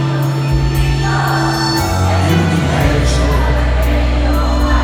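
Live pop band playing with singing, held bass notes under light cymbal strokes, recorded from among the audience.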